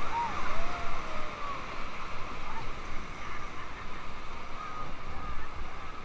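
Whitewater rapids rushing and splashing around an inflatable raft, a steady roar of water. In the first second or so rafters let out a few short gliding yells.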